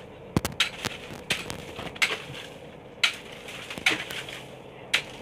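An axe chopping into block ice frozen rock-hard after days in the hold. It gives a series of sharp crunching strikes, about seven of them at an uneven pace of roughly one a second.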